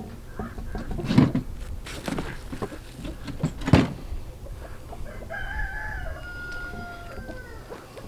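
A few sharp clanks of metal parts being handled in the first half, then a rooster crows once, a drawn-out call of about two seconds beginning around five seconds in. The clanks are the loudest sounds.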